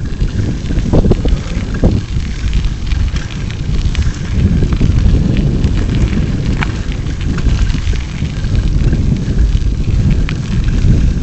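Wind buffeting the microphone of a camera on a moving bicycle, a loud steady rumble. Over it are scattered crunches and rattling clicks from the tyres on the loose gravel trail and the shaking bike.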